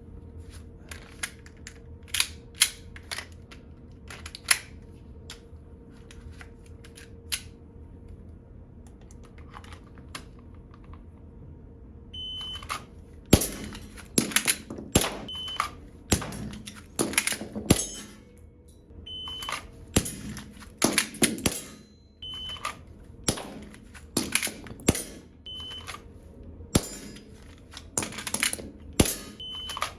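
Gas blowback airsoft Glock pistol firing in quick strings during speed-reload practice: sharp shots mixed with clacks and clicks of the slide and magazines. The shots are sparse at first and come thick and fast from about halfway in, with a short high beep before several of the strings.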